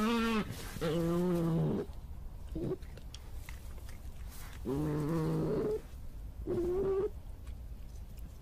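European badger calling: five wavering, pitched calls, each under a second long, the third one very short. The calls stop about seven seconds in.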